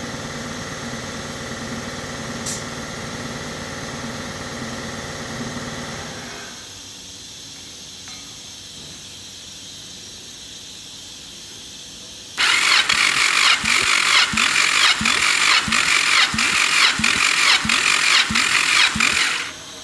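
Starter motor cranking a Yamaha 1800 cc four-cylinder jet ski engine for a compression test: a loud whirring spin with a regular chug about two to three times a second, starting a little past halfway and cutting off sharply near the end. Before it, a steady low hum fades out about a third of the way in.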